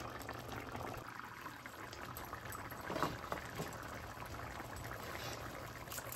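A pot of drumstick and shrimp tamarind curry bubbling steadily as it boils, with a few louder pops about halfway through.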